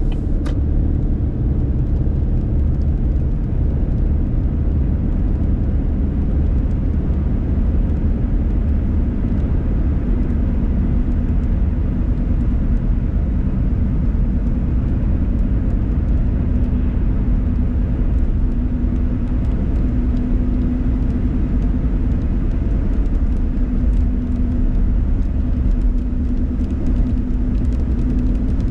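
Steady low road rumble and engine hum inside a moving car's cabin, with tyre noise from the rain-wet road.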